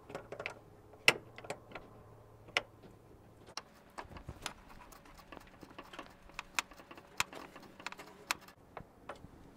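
Steel flare nut wrench clicking and clinking against the brake line tubing nuts and fittings of a proportioning valve as the nuts are loosened and the wrench is moved between them. It is a string of irregular sharp metallic clicks, the loudest about a second in.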